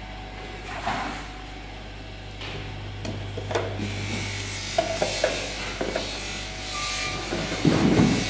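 Empty round plastic bottles being set down on a filling machine's conveyor and knocking against each other and the guide rails: scattered hollow knocks and rubbing, loudest near the end, over a steady low hum.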